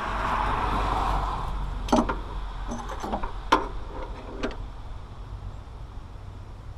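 A few sharp metallic clinks and knocks of a wrench against hydraulic line fittings on a mini excavator, after a brief rushing noise at the start.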